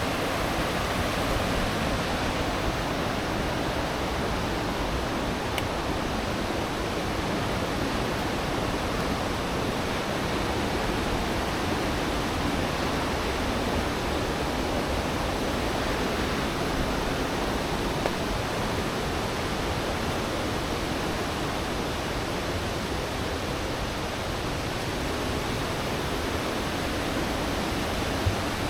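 Steady, even rushing noise with no pitch or rhythm, unchanging throughout.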